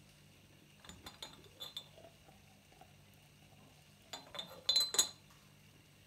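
Small hard clinks of ceramic or glass knocking together, in two quick clusters: a few about a second in and a louder run about four seconds in.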